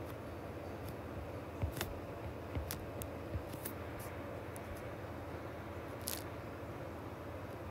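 Stylus tip tapping and clicking on a tablet's glass screen while digits are handwritten: a scatter of light, sharp taps, most of them in the first half and one more near the end, over a steady low hum.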